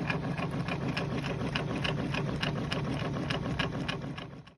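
A small machine running with a steady low hum and regular ticking about three times a second, fading out near the end.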